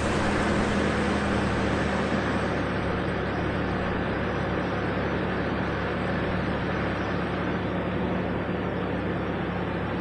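Toyota 4Runner engine idling steadily just after it has been started.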